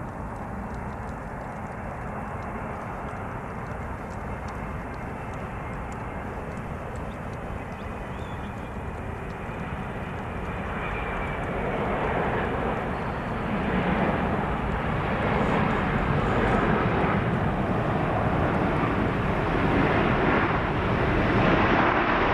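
Jet engines of an Air Canada Boeing 737 MAX 8 (CFM LEAP-1B turbofans) on landing: a steady roar that grows clearly louder around touchdown, about halfway through, and stays loud as the airliner rolls out along the runway.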